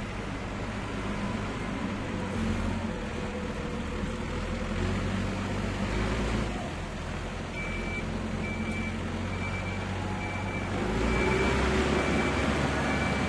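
Tractor engine running with a steady low rumble. From about halfway a reversing alarm beeps steadily about twice a second, and near the end the engine gets louder as it takes on work.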